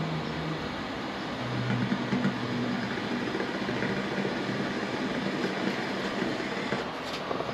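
Water rushing through the supply pipe into a tank-type water heater while the inlet valve is opened to pressure-flush sediment toward a clogged drain. A steady rushing noise with a low hum that shifts in pitch.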